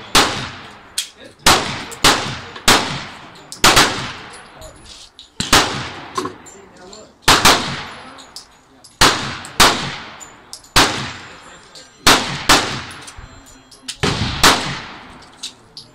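Semi-automatic pistol fired in a steady string, about one loud shot a second, each with a ringing echo tail, and fainter shots in between.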